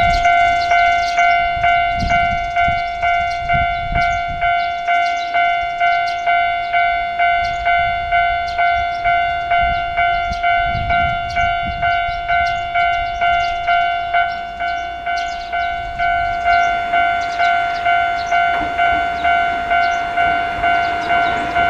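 Japanese railway crossing alarm bell ringing its repeated 'kan-kan' at about two strikes a second, each strike an even ringing tone, warning that a train is coming. A low rumble grows under it in the last few seconds.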